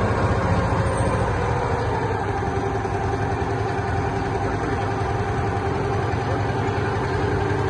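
A boat engine running steadily, its low, even drone holding without change.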